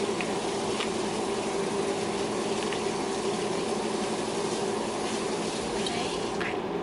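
Cajun seafood boil broth boiling in a wok on a gas burner: a steady bubbling hiss with a low hum underneath, with a few light taps of a utensil in the pan.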